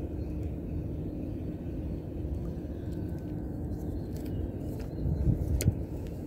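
Steady low outdoor rumble. About five seconds in come a few handling knocks and one sharp click as the Shimano Stradic 3000HG spinning reel's bail arm is worked.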